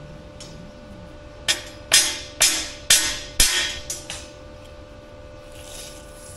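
Hammer blows on a steel rebar frame, five strikes about half a second apart and then a lighter tap, each one ringing briefly: knocking the frame over to bring its diagonals into square.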